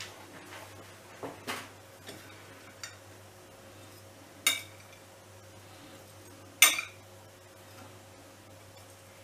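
Metal kitchen tongs clinking sharply twice against a ceramic plate while picking up steak strips, after a few softer handling knocks in the first seconds, over a faint steady low hum.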